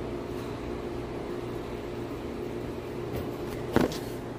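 Steady low mechanical hum with a few even tones in it, and a short knock a little before the end as the camera is handled.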